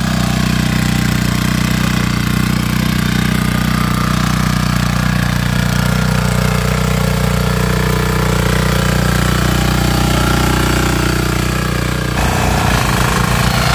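Micojet diesel walk-behind power tiller engine running steadily while tilling wet soil. About twelve seconds in it turns a little louder, with a fast throbbing pulse.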